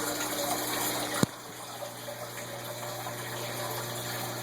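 Steady background hum and hiss with one sharp click a little over a second in, after which a faint steady tone stops and the sound gets slightly quieter.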